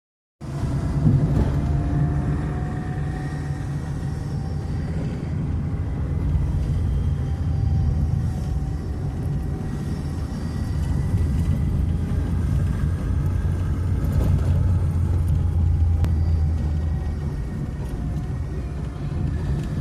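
Car engine running steadily: a continuous low rumble with a faint whine that wavers slightly in pitch. The noise is put down to a failing cylinder head gasket.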